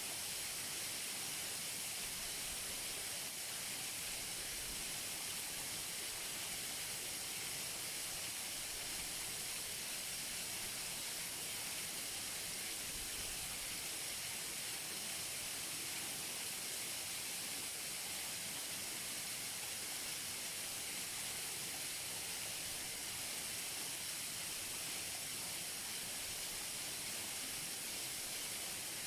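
Waterfall heard close up: a steady, even rush of falling water with a bright hiss, unchanging throughout.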